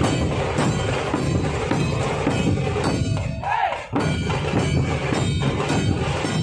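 Background music with a percussive beat.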